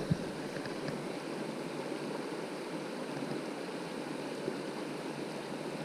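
Steady rushing of a fast-flowing river current, with no other distinct sound.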